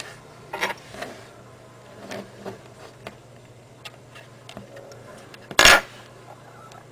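Scattered clicks and scrapes of hands handling a thin insulated copper wire on a tabletop and stripping off its insulation, with one louder scraping rustle about five and a half seconds in, over a steady low hum.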